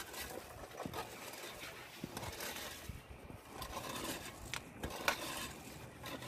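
Light scraping and a few scattered clicks and knocks from hands working on plastic CPVC water pipes.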